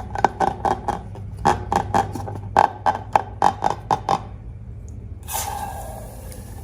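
Slime being squished and squeezed, a quick run of sharp, wet squelching clicks for about four seconds. About five seconds in, a steady rushing hiss starts.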